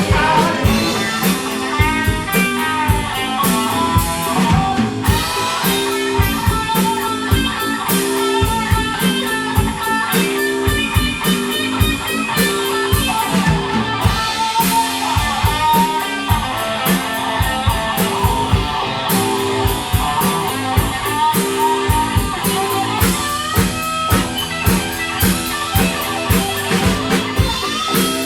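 Blues-rock band playing an instrumental passage with no vocals: an electric guitar lead with bending notes over a steady drum kit beat and bass.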